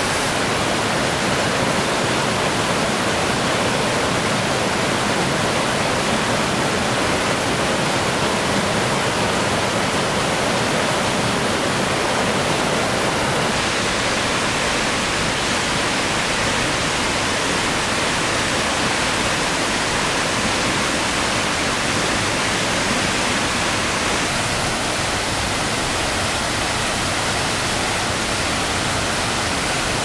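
Steady rush of spring meltwater cascading over rocks in a stream and waterfall, a continuous even noise of falling water. Its highest hiss softens slightly a little before halfway through.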